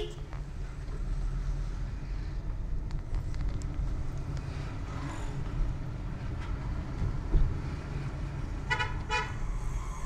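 Steady low engine and road rumble heard inside a moving car's cabin, with a single thump about seven seconds in. Near the end a vehicle horn gives two short toots.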